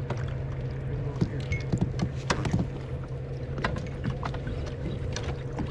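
Small sounds of kayaks on open water: water slapping at the plastic hulls and scattered knocks and clicks of paddles, nets and rods against the boats, over a steady low rumble.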